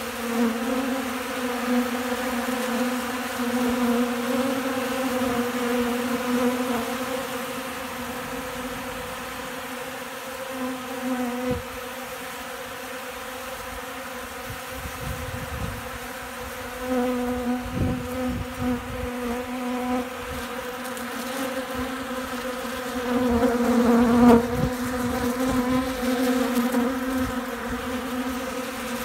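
Many honey bees buzzing close to the microphone, a steady hum that swells louder now and then as bees fly near, loudest about three-quarters of the way in. Wind gusts buffet the microphone with low rumbles now and then.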